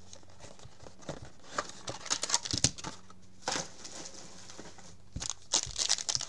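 Plastic trading-card packaging crinkling and rustling as it is handled and torn open, with scattered light clicks and taps, busier near the end.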